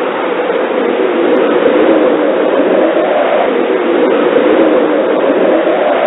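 Blizzard wind blowing with a steady, dense rushing noise that grows a little louder about a second in.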